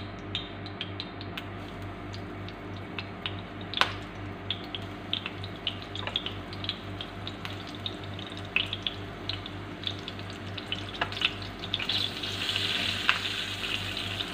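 Hot oil crackling and sizzling as whole flour-dredged fish fry in a nonstick pan, with scattered pops and a denser, louder sizzle near the end. A kitchen exhaust fan hums steadily underneath.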